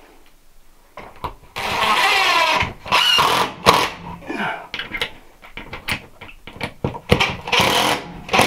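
Cordless drill/driver running in short spurts as it drives the screws of a ceiling electrical box, drawing the box's clamps up tight. There are three longer runs and several brief bursts, with small clicks and knocks between them.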